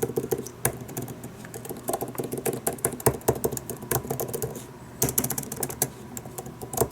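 Apple Magic Keyboard for iPad Pro, its scissor-switch keys pressed at random: a quick, uneven run of key clicks, with a denser, louder flurry about five seconds in.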